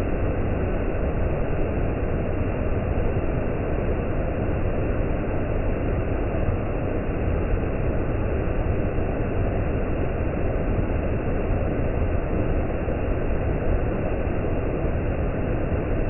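Waterfall rushing steadily: heavy white water cascading over rock ledges, a dense, unbroken noise weighted toward the low end.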